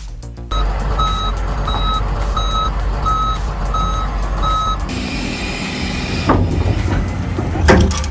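Heavy vehicle's diesel engine running while its reversing alarm beeps steadily, about once every 0.7 seconds. The beeping stops after about four seconds and is followed by a hiss of released air and two sharp knocks.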